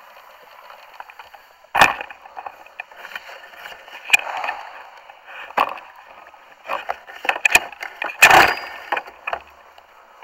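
Handling noise on a small camera: irregular knocks, taps and scraping against it. The loudest knocks come a little under two seconds in and again about eight seconds in.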